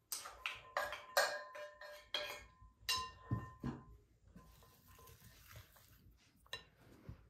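A spatula knocking and scraping against a ceramic bowl, a quick series of ringing clinks, then softer scraping as a wooden spoon stirs a chopped mixture in a glass bowl.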